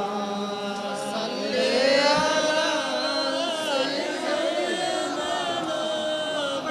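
Voices singing a slow Bengali devotional song in a drawn-out chant, several voices overlapping on long held notes.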